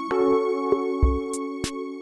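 Electronic background music: held synthesizer chords, a new chord coming in at the start, over a light percussive beat.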